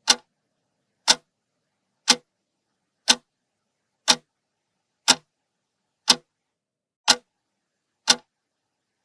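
Clock-ticking sound effect, one sharp tick each second, nine ticks in all. It serves as a countdown timer giving time to answer the riddle.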